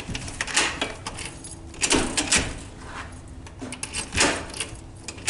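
Keys jangling and metal clicking in a cabin door lock as it is unlocked, in several short clatters.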